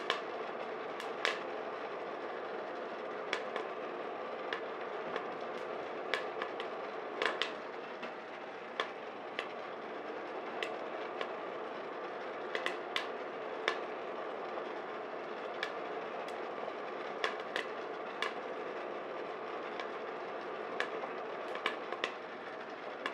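Coffee beans popping in first crack: scattered sharp cracks, about one or two a second at irregular intervals, over the steady whir of the turbo convection oven's fan and the Stir Crazy popper's stirring motor.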